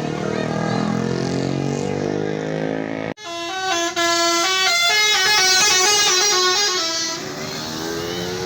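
A bus going past with its engine pitch slowly sliding. After a sudden break about three seconds in, a bus's 'telolet' multi-tone musical horn plays a quick melody of stepped notes for about four seconds. Engine sound returns near the end.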